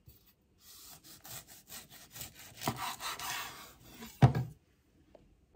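A chef's knife sawing back and forth through a cooked pork saucisson in a series of scratchy strokes, the blade rasping on the wooden cutting board. It ends in one sharp knock on the board about four seconds in.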